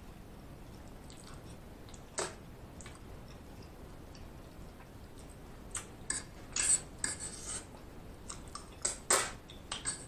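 A metal fork clicking and scraping against a plate of spaghetti: one click about two seconds in, then a run of sharp clicks and short scrapes in the second half.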